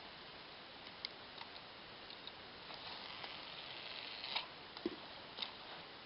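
Faint steady hiss from a camcorder's own microphone with scattered small clicks and handling knocks, a few louder ones between about four and five and a half seconds in.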